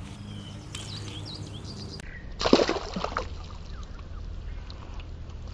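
A single splash in shallow pond water about two and a half seconds in, from a bluegill dropped back into the pond. Birds chirp faintly in the background.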